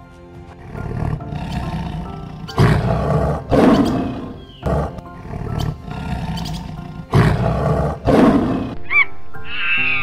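Lion roaring, a series of rough roars with short pauses between them, over steady background music. Near the end, short high-pitched calls begin.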